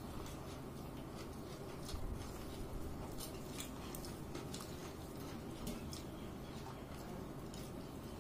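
Eating sounds: irregular soft clicks and smacks of chewing over a steady low background hum.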